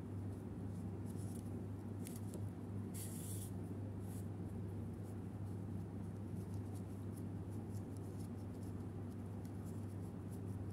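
Faint scratchy rustling of yarn and a sewing needle worked by hand as a crochet flower is stitched onto a crochet pencil topper, over a steady low hum. One brief louder hiss about three seconds in.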